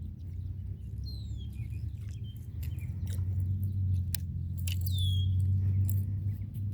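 Birds chirping in short calls that slide downward in pitch, over a steady low rumble that grows louder about three seconds in, with a few sharp clicks.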